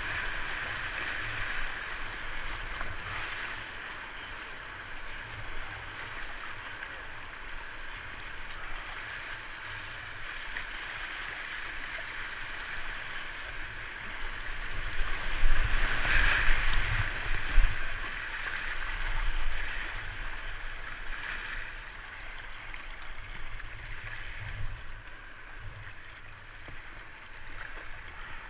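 Whitewater rushing and splashing around a kayak running a river rapid. It swells louder about halfway through, then eases.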